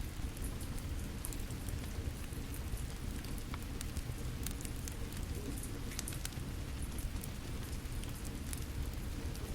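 Steady rain falling, mixed with a wood fire crackling in irregular sharp pops over a low, constant rumble.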